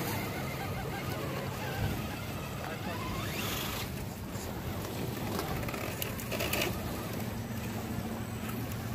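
Electric motor and gearbox of an RC crawler truck whirring in short bursts as it crawls over rock, over a steady low hum. One burst rises in pitch about three seconds in, and there is a brighter burst about six seconds in.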